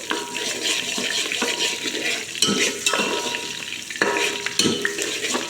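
Mint leaves and green chillies sizzling in hot oil in a pot, with a metal spoon stirring and scraping against the pot. Several sharp clinks ring briefly, the loudest about four seconds in.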